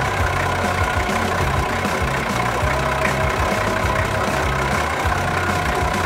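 Cartoon truck engine sound effect, a dump truck running steadily at a low rumble as it drives along.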